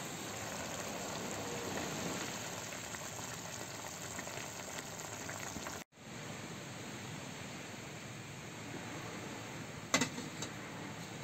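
Food sizzling in a wok over a portable gas stove burner, with a steady hiss. About ten seconds in, a pot is set down on the burner grate with a sharp clank and a smaller knock just after.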